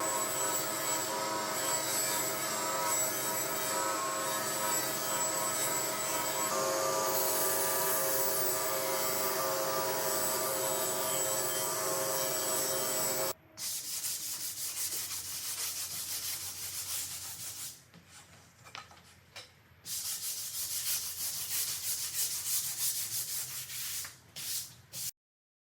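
Wood being sanded. For about thirteen seconds it is steady, continuous sanding with a running hum, then it breaks into shorter stop-start stretches of rubbing strokes and ends abruptly.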